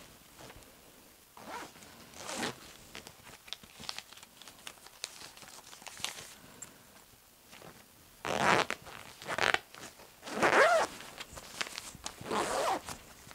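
Zipper on a soft black fabric bag being pulled closed in four loud strokes over the last five seconds, one of them rising in pitch. Before that, quiet rustling of the fabric and clothes being handled.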